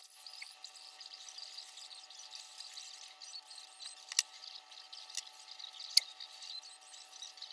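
A hand tool scraping and rubbing a small wooden part cut from a model aircraft kit sheet, with two sharp snaps, one about four seconds in and a louder one about six seconds in.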